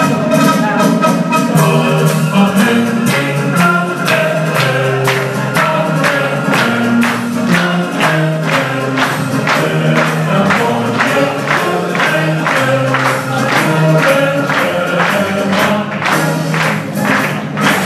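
Lively dance music with a quick, steady beat of about two to three strokes a second, played for a folk dance.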